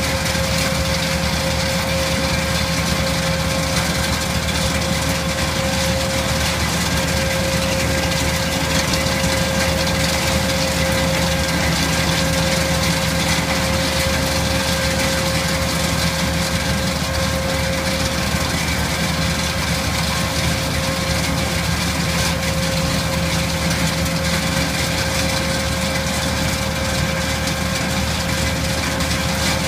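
Tractor engine running steadily while driving a GIAMPI STAR 1800 Plus tractor-mounted nut harvester, whose hydraulic side brush spins to sweep fallen nuts from under the trees. An even mechanical hum with a constant tone, unchanged throughout.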